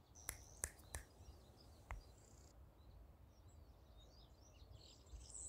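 Near silence: faint outdoor ambience with faint bird chirping and four soft clicks in the first two seconds.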